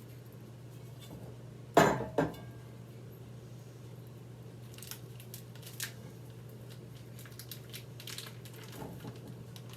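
Kitchen utensils and dishes clattering as chicken is added to the pot: two sharp knocks about two seconds in, then a few scattered light clicks, over a steady low hum.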